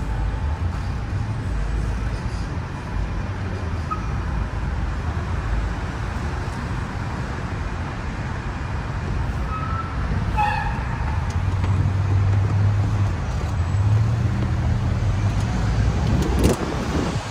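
Open-top tour bus engine and road traffic rumbling steadily, heard from the upper deck; the engine note grows stronger a little past the middle as the bus pulls away.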